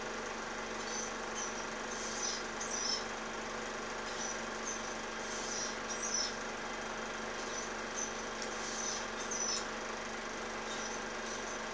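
Osprey calling: short bursts of high, thin, falling chirps, repeating every second or so. Under them runs the steady hum and hiss of an old film soundtrack.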